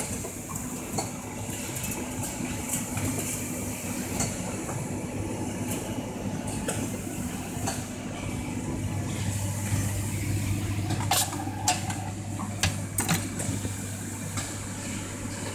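SWIFT automatic cable tie gun cinching and cutting ties, short sharp clicks every second or two with a quick run of louder ones near the end, over a steady machine hum that drops to a deeper hum about nine seconds in.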